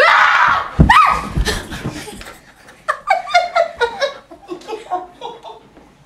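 A person startled by a scare: a sudden loud scream at the start and a rising cry about a second in, with two heavy thumps, then a few seconds of laughter.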